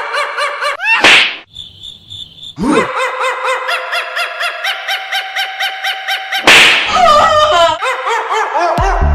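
Cartoon slap sound effects: a sharp whoosh and slap about a second in, and a louder slap impact about six and a half seconds in, over a fast repeating pitched sound of about four pulses a second. Music with a beat comes in at the very end.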